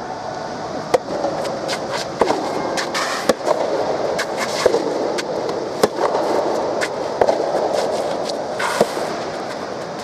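Soft tennis rally: the soft rubber ball is struck by rackets and bounces on the court, a string of sharp pops every half second to a second, over a steady murmur of spectators.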